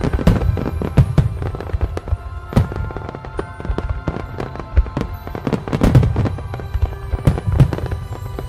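Fireworks display firing a dense barrage: many shell bursts and bangs in quick succession with crackling in between, heaviest about six seconds in.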